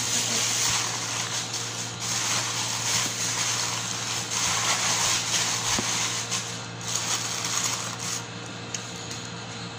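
Clear plastic crinkling and rustling as hands wrap and press it around a whole chicken in a glass baking dish, with a steady low hum underneath.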